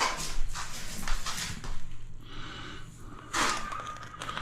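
Bond breaker being worked along the wall-to-floor joint: a series of short hissing, scraping strokes, with a louder one near the end.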